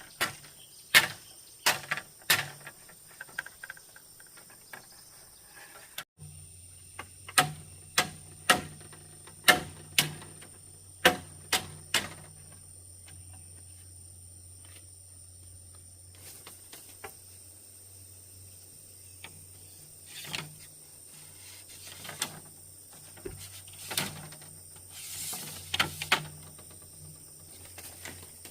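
Sharp knocks in quick runs of about two a second, then scattered single knocks, over a low steady hum that begins about six seconds in.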